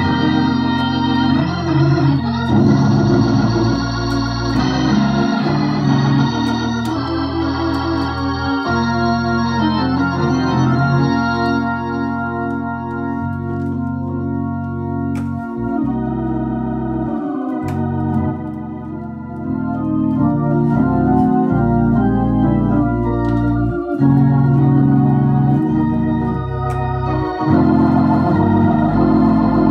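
Viscount Legend Live drawbar organ played with both hands through a Tornado T115 valved rotary speaker, sustained chords and a moving melody. About halfway through, the drawbars are changed and the tone turns mellower, then fills out brightly again near the end.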